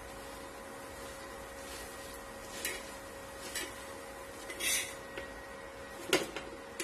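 A flat metal spatula pressing and pushing a stuffed paratha on an iron tawa, giving a few short, soft scrapes and hisses, with a click near the end. A steady faint hum runs underneath.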